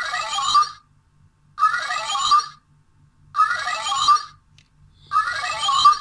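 DX Rounder Shot toy blaster playing its red-mode electronic sound effect through its small speaker, a scanning-type signal. It is a warbling, ringtone-like electronic burst about a second long that repeats roughly every second and three quarters, with short silences between.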